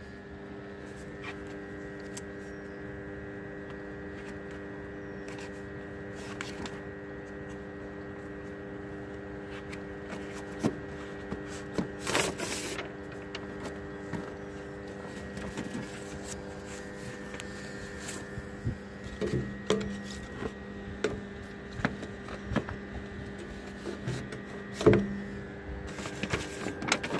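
Steady electrical hum made of several even tones. Over it, paper rustling and handling clicks come now and then, the loudest rustle about twelve seconds in and more of them in the last third.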